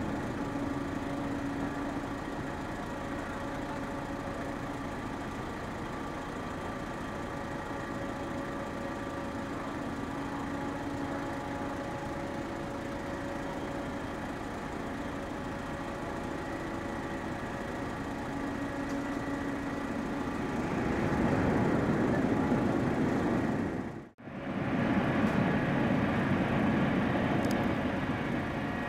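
Steady mechanical hum of several fixed tones from the ferry Suzuran's engines and onboard machinery as she berths. It swells louder about two-thirds of the way in, breaks off for an instant, then stays louder for a few seconds before settling back.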